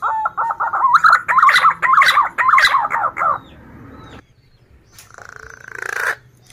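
Male punai daun green pigeon singing: a fast run of short, warbling whistled notes for about three and a half seconds, then falling quiet. A brief rustling noise builds up and stops about five seconds in.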